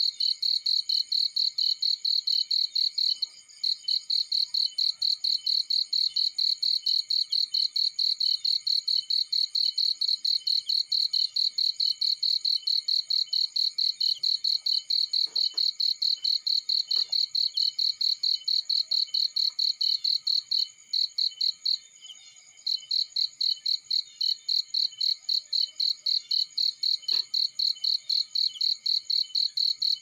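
Crickets chirping loudly in a fast, even pulsing trill, with brief pauses about three seconds in and past the twenty-second mark. A few faint crackles from a small fire of burning leaves and twigs.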